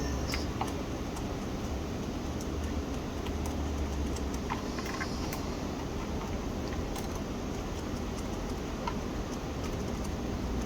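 Light, scattered clicks and taps of soldering tools on a circuit board over a steady low background hum.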